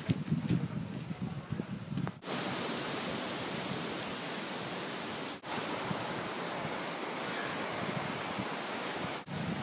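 A fast-flowing stream rushing over rocks: a steady rushing that begins about two seconds in after some softer rumbling and handling knocks, and breaks off briefly twice.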